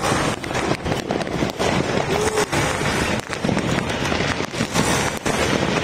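Fireworks and firecrackers going off all around, a dense, unbroken crackle of sharp bangs and pops, several a second.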